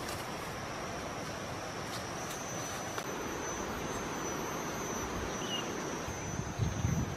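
Outdoor ambience: a steady high-pitched whine over a hiss of wind, with a couple of faint chirps and a few low thumps of wind or handling on the microphone near the end.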